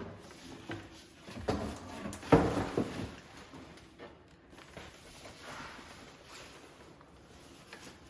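Packaging of a new Keurig coffee maker being handled during unboxing: rustling with a cluster of knocks and bumps about two seconds in, the loudest near the middle, then softer scattered handling.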